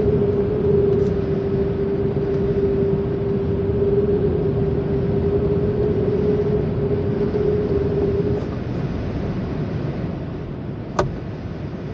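Airflow rushing steadily past the Archaeopteryx glider's open-view cockpit as it descends to land. A steady tone runs under it until about two-thirds of the way through, and a single click sounds near the end.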